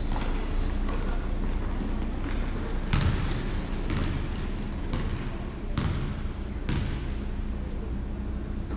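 Basketball bouncing on a hardwood gym floor as it is dribbled up the court, a sharp knock roughly once a second in the second half, with a few short high sneaker squeaks and faint voices over a steady low hum.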